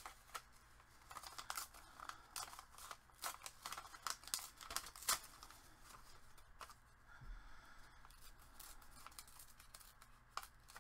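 Paper collage scraps rustling and crinkling as they are handled and sorted by hand, a run of irregular crisp crackles, busiest in the first half.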